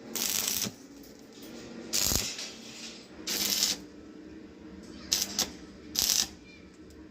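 Electric arc welder laying a series of short tack welds: six brief bursts of crackling, each under a second, over a faint steady hum.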